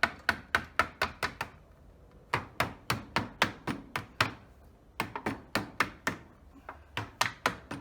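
Hammer blows on a thin tin sheet, bending it tight over a wooden lid edge: runs of sharp, quick strikes, several a second, broken by short pauses.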